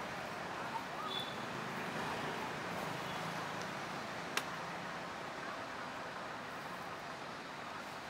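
Steady outdoor street ambience with a low hum of distant traffic, and a single sharp click a little past four seconds in.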